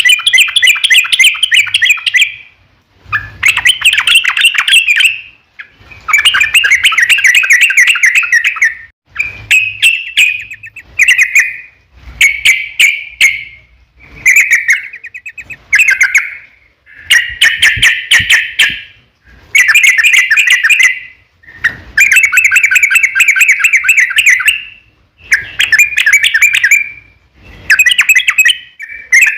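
Yellow-vented bulbul (trucukan) singing long, fast, bubbling phrases of one to three seconds each, one after another with only short breaks between them.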